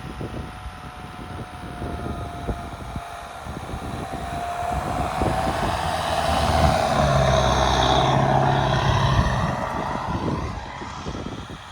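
Mitsubishi L200 pickup truck running hard off-road, growing louder to a peak about two-thirds of the way through, then easing off.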